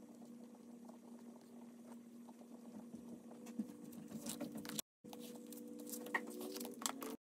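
Pen scratching on paper as a planner page is written in, then the planner's pages being lifted and turned with soft rustles and clicks from about four seconds in. A faint steady hum runs underneath, and the sound cuts out for a moment just before five seconds.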